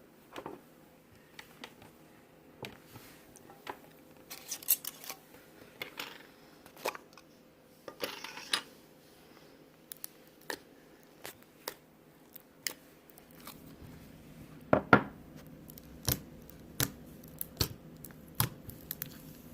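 Slime being handled close up: irregular sharp clicks and pops, with a few short rustling stretches in the first half and the loudest click about fifteen seconds in.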